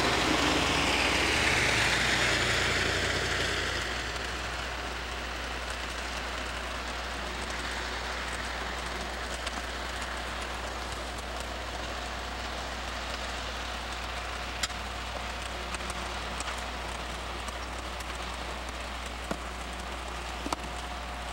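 Steady hiss of rain falling, with a few sharp ticks of drops later on. Over the first few seconds a louder rushing tyre noise from a passing vehicle fades away.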